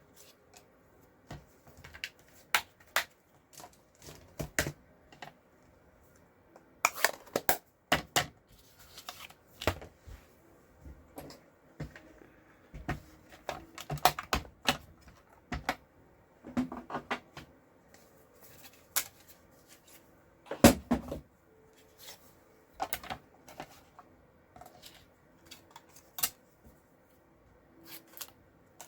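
Craft supplies being handled on a desk while a metal die is set on stamped cardstock: scattered clicks, taps and paper rustles, with one louder knock about 21 seconds in.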